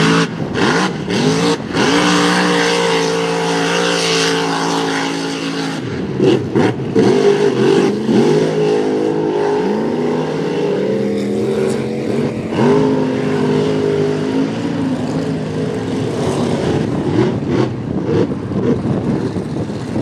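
Supercharged 540 cubic-inch big-block V8 running on alcohol with a 14-71 blower, revving hard again and again as the mud truck drives through the bog, its pitch climbing sharply several times and held high for a few seconds near the start. Mud and water spray from the tyres.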